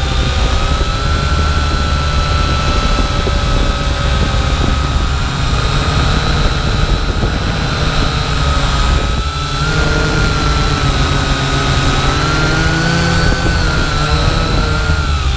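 Syma X8W quadcopter's motors and propellers whining steadily, the pitch wavering slightly as it flies, over a low rumble. The whine dips briefly about nine seconds in.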